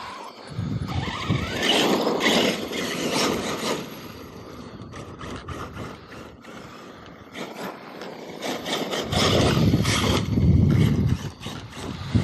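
Electric RC monster truck driving hard over dirt and gravel: motor whine and tyres scraping and churning, in bursts about a second in to four seconds and again from about nine seconds on, quieter in between.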